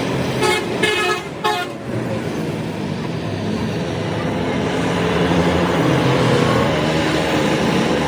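A vehicle horn sounds three short toots in the first two seconds, over a steady rumble of road traffic.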